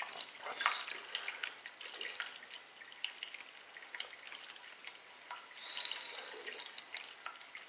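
Faint trickle of water with irregular drips from a newly connected water supply line.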